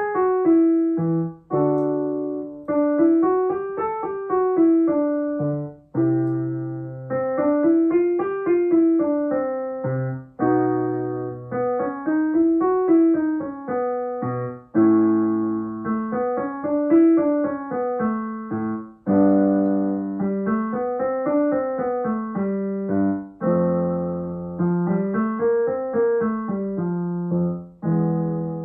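Piano playing a vocal warm-up accompaniment: a five-note scale run up and back down, about every four seconds, each run introduced by a short chord and repeated in a shifted key.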